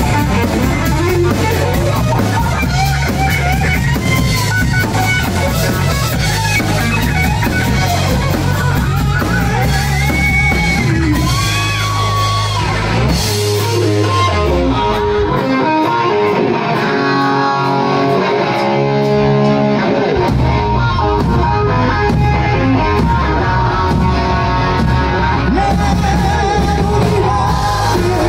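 Live rock band playing loud through a bar PA: electric guitar, bass, drum kit and keyboards, with a lead singer. Near the middle the bass and drums drop out for several seconds, leaving guitar and keys, then the full band comes back in.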